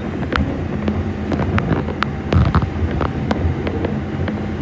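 Bombardier R142 subway car running along elevated track: a steady low rumble from the wheels and running gear, with sharp clicks from the wheels on the track about two times a second.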